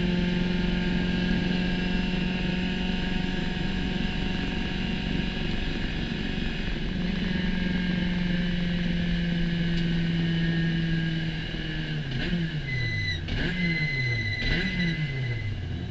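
Spec Racer Ford SRF3's four-cylinder engine held at a steady high pitch at full throttle. About twelve seconds in, the revs drop and jump back up several times as the car brakes and downshifts, then settle at a lower pitch.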